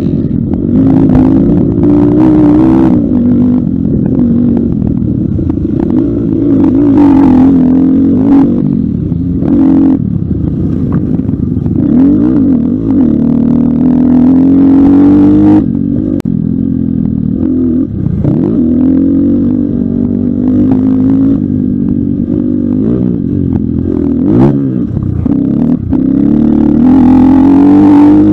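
Pitster Pro LXR250f 250cc four-stroke dirt bike engine heard from on board, revving up and dropping back again and again as the rider works the throttle and gears, with sharp drops around the middle and near the end. Brief clatters and knocks from the bike over rough track break in now and then.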